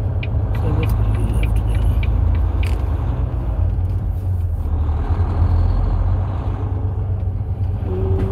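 Volvo semi-truck's diesel engine running at low road speed, heard from inside the cab as a steady low rumble. There is light, rapid ticking in the first few seconds and a soft hiss that swells and fades about midway.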